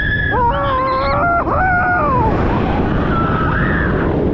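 Roller-coaster riders screaming, several long wavering screams that rise and fall in pitch in the first two seconds and another near the end, over a steady rushing noise of the ride.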